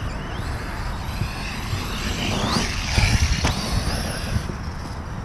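Wind rumbling on the microphone. Over it, a thin whine rises and falls in the middle: the electric motor of a Reely Raptor 6S RC buggy accelerating and letting off.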